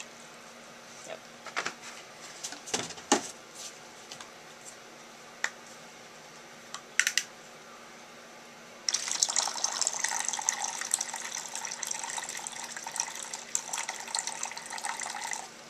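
Distilled water poured from a plastic gallon jug into a plastic container on a kitchen scale: a few scattered knocks and clicks of handling first, then, about nine seconds in, a steady pouring stream that runs until just before the end.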